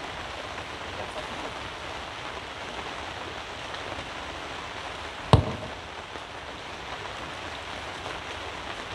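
Steady rain falling on a canopy tent, an even hiss, with one sharp thump about five seconds in.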